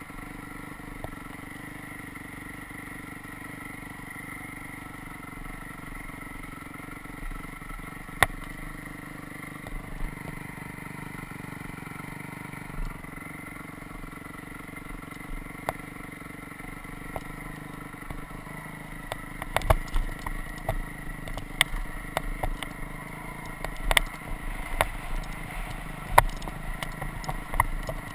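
Dirt bike engine running at steady low revs while the bike rolls over rutted ground. From about two-thirds of the way in, frequent sharp knocks and clatter from the bike bouncing over the ruts.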